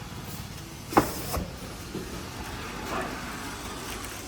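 A sharp knock about a second in and a lighter one just after, with faint handling noise, as the split AC's indoor unit and its packaging are handled.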